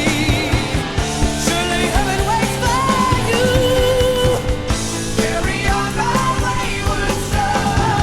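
Rock music with a singing voice over guitars and a steady drum beat.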